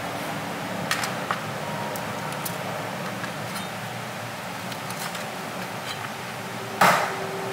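Chef's knife cutting through raw chicken wing joints onto a plastic cutting board: a few light knocks, then one louder chop near the end, over a steady background hiss.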